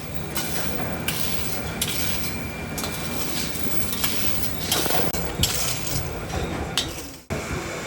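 Light metallic clinks and a few sharp clicks over a steady low hum and hiss.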